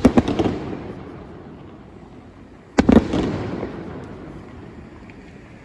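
Aerial fireworks shells bursting: a sharp bang at the very start and another about three seconds in, each followed by a quick cluster of pops and a rumble that slowly fades.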